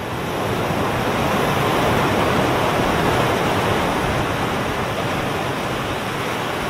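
Audience applauding, a dense, steady clapping that swells in over the first second and holds.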